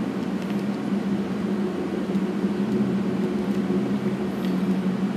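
Steady low mechanical hum over an even hiss: a constant background drone in the room.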